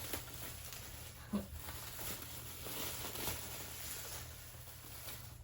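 Soft rustling and crinkling of bubble wrap and packing tape being handled and pulled apart, with a few small clicks.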